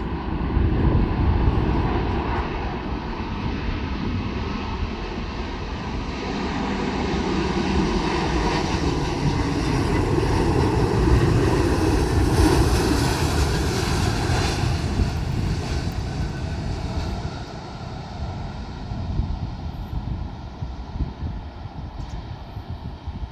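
Four-engined Airbus A380 jet airliner on landing approach passing by. Its engine noise swells to its loudest a little past halfway, with a strong hiss and a few steady whining tones, then fades away over the last few seconds.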